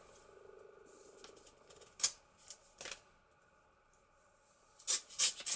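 A paper envelope being handled and opened with a letter opener: a sharp click about two seconds in and a couple of lighter taps after it, then a quick run of crisp paper crackles near the end.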